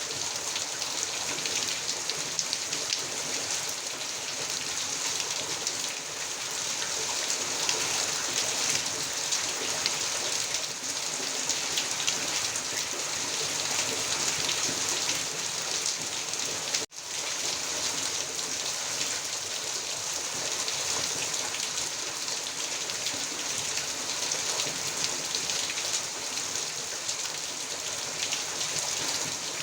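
Heavy rain falling steadily: a dense hiss with a fine patter of individual drops. The sound cuts out for an instant a little past halfway through.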